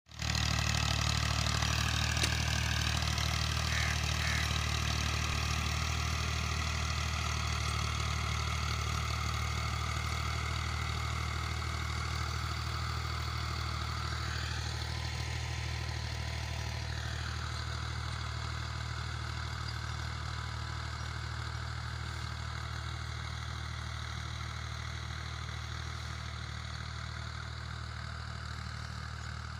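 Al-Ghazi 65 HP diesel tractor engine running steadily under load while pulling a rotavator through the soil, a low drone that slowly fades as the tractor moves away.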